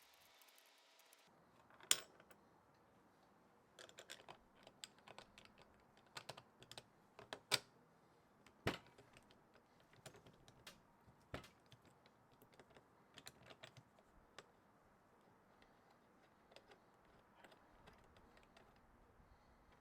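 Scattered, irregular light clicks and taps against near silence, with the sharpest ones about two seconds in and again around the middle.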